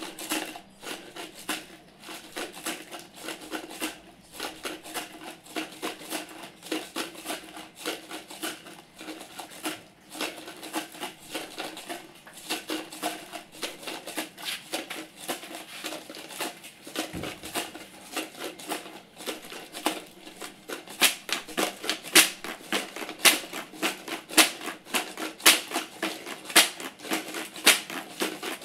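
Dense, rapid, irregular clicking and crackling that runs throughout and grows louder and sharper about 21 seconds in.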